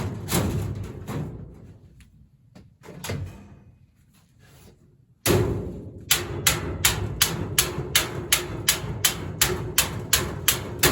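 Background music with a steady beat that fades away, then cuts back in abruptly about five seconds in.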